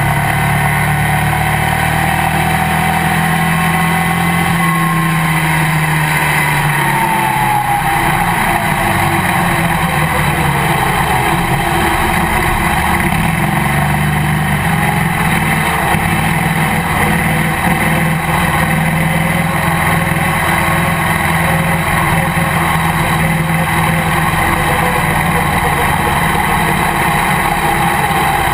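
Legends race car engine, heard from inside the cockpit, running hard and steadily as the car drives from pit road onto the track. Its pitch shifts a few seconds in.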